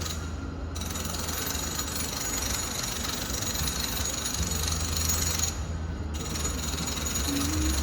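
Home renovation noise heard from a distant room through the walls: a steady low machine hum under a rattling, grinding power-tool noise, which breaks off briefly at the start and again about two thirds of the way through.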